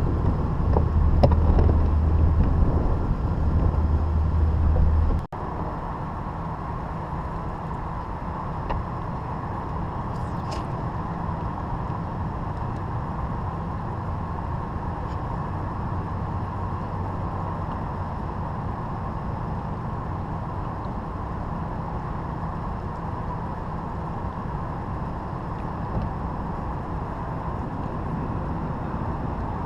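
Boat motor running steadily. About five seconds in the sound changes abruptly: a strong deep hum drops out, leaving a steadier, higher running noise.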